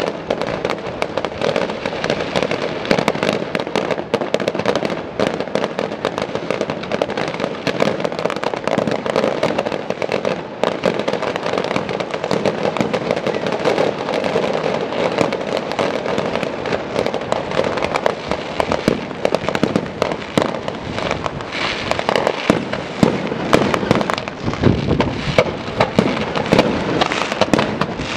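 Fireworks display: a dense, continuous barrage of crackles and pops from shells and fountains, with heavier bangs crowding in over the last several seconds.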